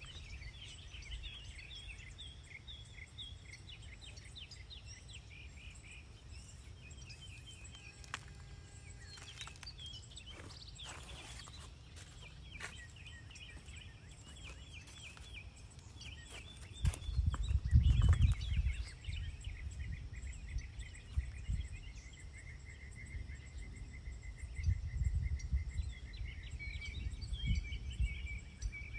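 Outdoor ambience of insects chirping in quick, high, repeating trills, with a few bird calls mixed in. A louder low rumble comes in about seventeen seconds in, and again more weakly near the end.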